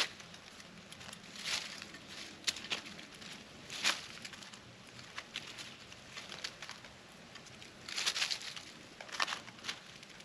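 Scattered short clicks and crackling rustles from animals feeding at a plate of peanuts, with a quick cluster of them about eight seconds in.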